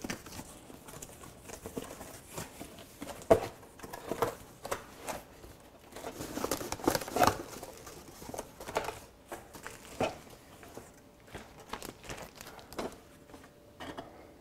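Cardboard box and its packing being opened and pulled apart by hand: irregular rustling, crinkling and scraping, with scattered knocks, busiest about six to seven seconds in.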